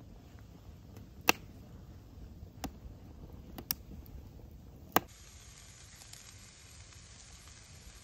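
Wood planks burning in a steel fire basket, crackling with several sharp pops, the loudest a little over a second in. About five seconds in this gives way to a steady soft hiss of sausages, steaks and fish sizzling on the grill grate.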